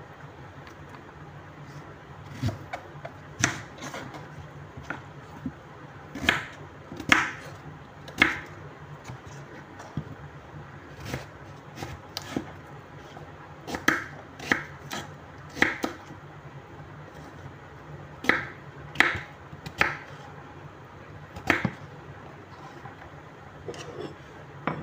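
Kitchen knife cutting squash into chunks on a wooden cutting board: irregular sharp knocks as the blade meets the board, roughly a second apart, over a steady low hum.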